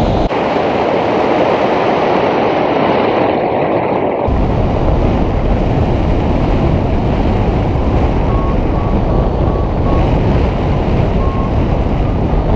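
Wind rushing over the microphone of a camera on a hang glider in flight, a loud steady roar. The deep rumble drops out for the first few seconds. Faint short high beeps come about eight seconds in and again near the end.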